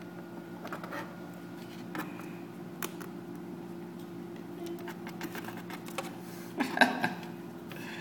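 Steady low hum with scattered light taps and clicks, and a brief louder cluster of taps about seven seconds in.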